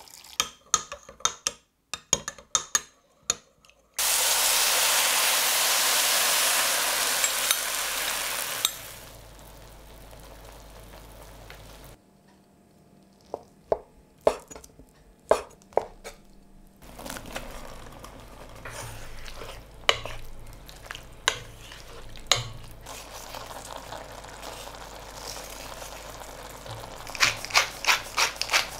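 Kitchen sounds in a sequence. First a spoon clinks a few times against a glass measuring jug as miso paste is stirred into water. From about four seconds in, food hits hot oil in a frying pan and sizzles loudly, settling to a quieter sizzle after about five seconds. Then a knife cuts through a block of tofu and knocks on a wooden board several times. A pan of tofu and mushrooms follows, sizzling steadily with occasional knocks, and near the end comes a quick run of clicks as black pepper is ground over it.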